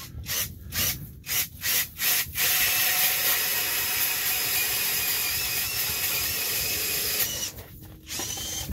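Cordless drill turning an ice auger into the ice. It gives a few short bursts, then runs steadily for about five seconds with a wavering motor whine over the grinding of the blades, and cuts off about seven seconds in.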